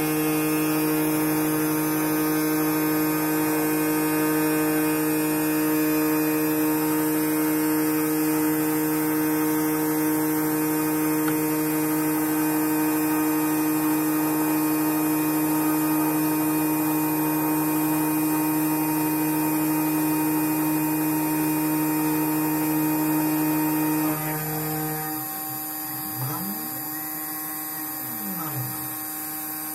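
Desktop CNC router engraving a copper-clad circuit board: the spindle motor runs with a steady, even hum. About 24 seconds in it turns quieter, and the stepper motors moving the axes give a whine that rises and falls in pitch several times.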